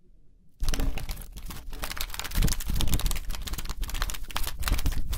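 Loud, close rustling and crackling with many quick clicks, starting about half a second in: handling noise as a hand reaches in to take hold of the sparrow at the window.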